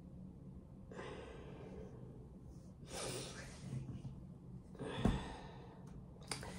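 A woman's tired, breathy sighs: long breaths out at about one, three and five seconds in, over a faint low hum, with a soft thump near the last one.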